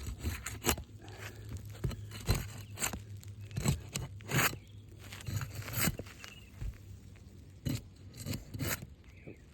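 Irregular scrapes, crunches and sharp clicks of asphalt roof shingles being handled and pried up, their sealant strips failing.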